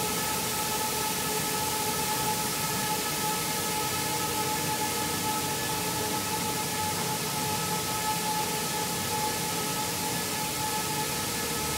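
Rice-milling machinery running steadily: a constant loud whirring rush with a steady high whine over it.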